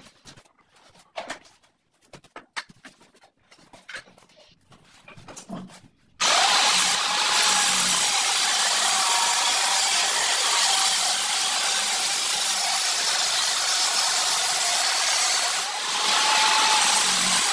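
Handheld angle grinder cutting along a ceramic floor tile: it starts suddenly about six seconds in and runs steadily with a high whine, dipping briefly near the end. Before it, a few light knocks and clicks of handling.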